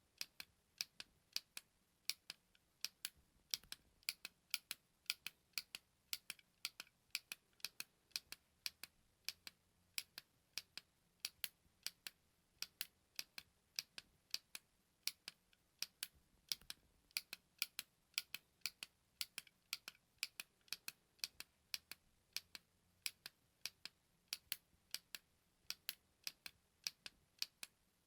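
Button clicks, pressed repeatedly: short, sharp clicks, a few a second and often in close pairs, with near silence between them.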